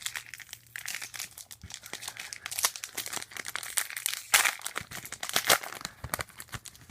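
Plastic wrapper of a trading-card pack crinkling as it is torn open and handled, a dense run of crackles with a louder crinkle about four and a half seconds in.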